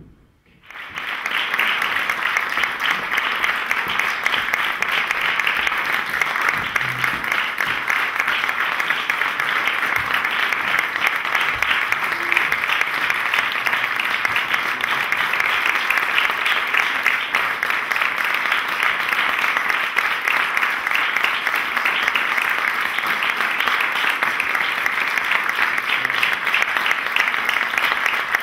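Audience applauding, starting just under a second in, swelling quickly and then holding steady as a dense, even clapping.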